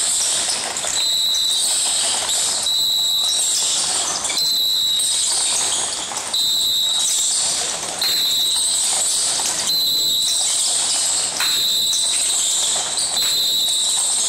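Busy gym ambience: many basketballs bouncing on the court with players' voices mixed in. A high tone recurs about every second and a half.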